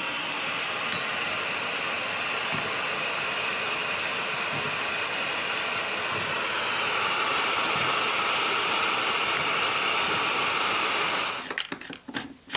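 Portable gas-cartridge burner running with a steady hiss under a tin can of scrap lead being melted. About eleven seconds in it stops suddenly, and a few light clicks and clatters of handling follow.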